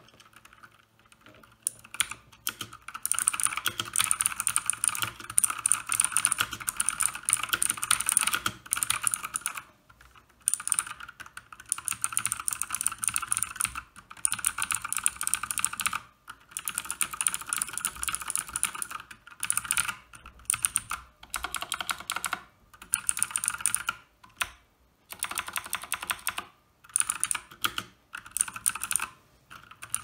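Typing on a White Shark Spartan tenkeyless mechanical keyboard with Outemu Blue clicky switches: rapid runs of sharp clicks lasting a few seconds each, broken by short pauses. The typing starts about a second and a half in.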